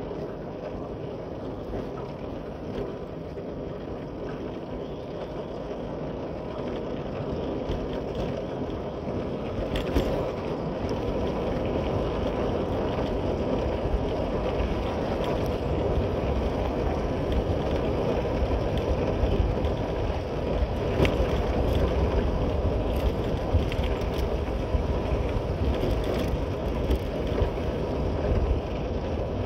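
Motorcycle running under way, with road and wind noise on the microphone; the rumble gets louder about a quarter of the way in.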